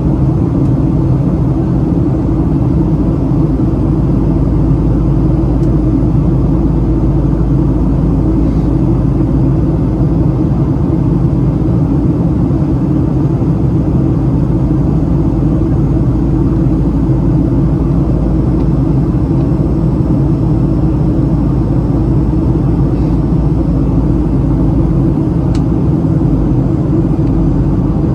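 Steady cabin noise inside a Boeing 737-700 airliner in flight: the low, even rumble of its CFM56 turbofan engines mixed with the rush of air along the fuselage.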